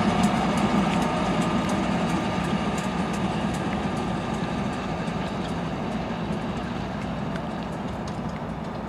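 Diesel freight locomotives, a CSX ES44AH leading Union Pacific units, rolling past and moving away, their engine rumble fading steadily, with scattered sharp clicks from the wheels on the rails.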